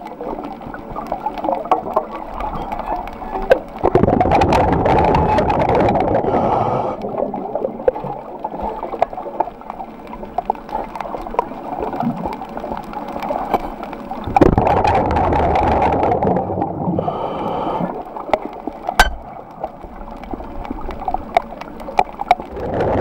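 Underwater water noise, gurgling, with many scattered clicks. About four seconds in and again about fourteen seconds in it swells into louder rushing stretches that last two to three seconds each.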